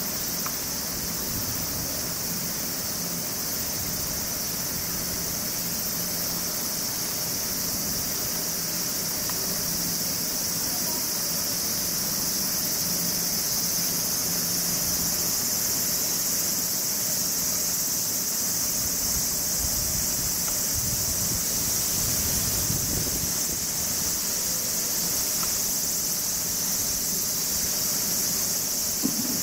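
Steady chorus of insects, a continuous high-pitched shrill that grows a little louder about halfway through. A faint low hum runs beneath it.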